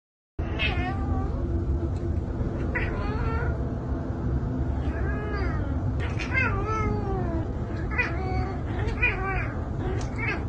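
A domestic cat meowing over and over, drawn-out meows that rise and fall in pitch, one every second or two, over a steady low background rumble.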